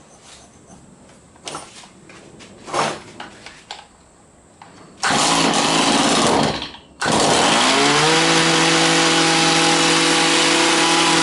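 Stihl HS45 hedge trimmer's small two-stroke engine being started after reassembly: a few light clicks as the primer bulb is pumped, then it fires and runs for about a second and a half, cuts out, and starts again about seven seconds in, rising in pitch and settling into a steady idle.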